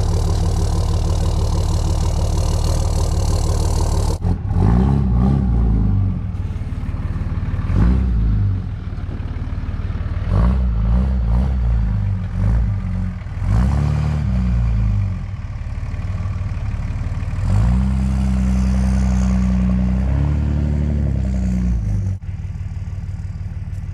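Pickup's 5.9 Cummins turbo-diesel straight-six running under way. After about four seconds of steady running, the engine's pitch rises and falls several times as it pulls and shifts through the gears.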